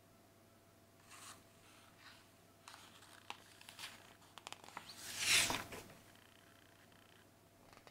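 Paper rustling as a picture-book page is handled and turned: faint rustles and light clicks, then a louder swish of the page turning over about five seconds in.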